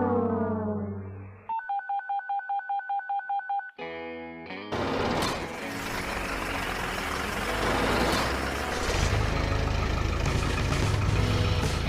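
Cartoon sound effects: a falling horn-like tone fades out, then comes a quick run of electronic beeps, about five a second. After that a dense machine noise with a low engine rumble starts and grows louder.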